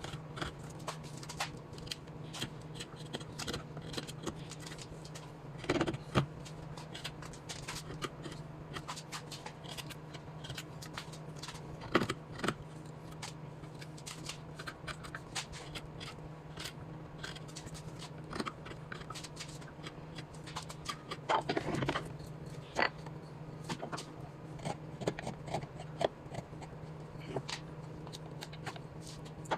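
Hand tool working wood: irregular scraping and small clicks, with a few louder knocks about 6, 12 and 22 seconds in, over a steady low hum.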